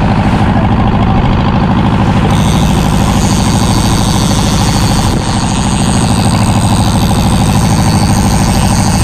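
Fishing boat's diesel engine running steadily, with a close, knocking rhythm. A higher hiss joins it about two seconds in.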